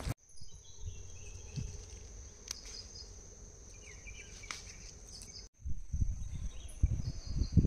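Insects trilling steadily at a high pitch, with a few short bird chirps. From about five and a half seconds in, irregular low bumps and rustling are heard close by.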